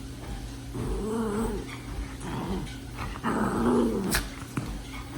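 A pet making drawn-out, whiny calls that rise and fall in pitch, three times, the third the loudest, with a sharp click just after it.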